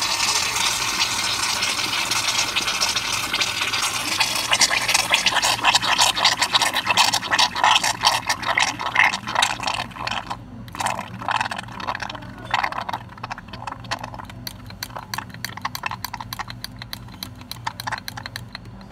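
Whipped cream dispenser being emptied into a stainless steel sink: a steady hiss of gas and cream from the nozzle that after about five seconds breaks into rapid sputtering spurts, growing fainter as the last of the gas is let out.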